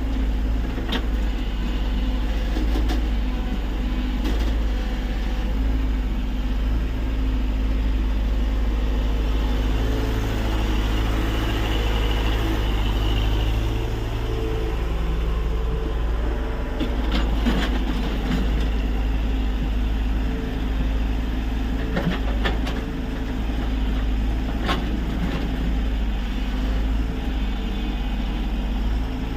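Tata Hitachi EX70 excavator's diesel engine running steadily, its note shifting as the hydraulics take load, with a few sharp knocks at intervals.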